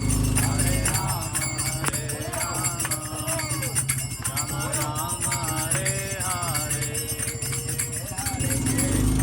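Devotional kirtan music: a wavering melody over steady jingling hand percussion.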